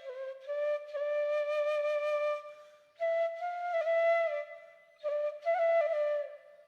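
Background music: a flute melody played in three phrases, each mostly holding near one note with small steps in pitch, with short breaks between them.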